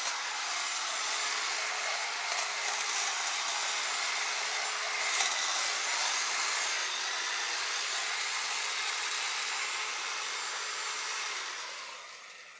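Electric hedge clippers running steadily as they trim a hedge, with a few brief louder moments while cutting. The sound fades out near the end.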